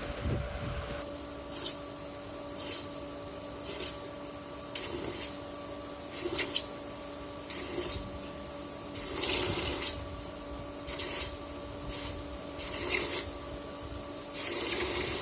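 An electric grinding tool runs with a steady motor hum. A steel axe head is pressed against it again and again, giving about a dozen short hissing grinding passes of half a second to a second each.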